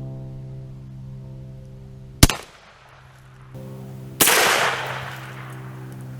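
Two shots from a Rossi Tuffy single-shot .410 shotgun: a sharp crack about two seconds in, then a louder blast about four seconds in that dies away over about a second. Steady background music plays underneath.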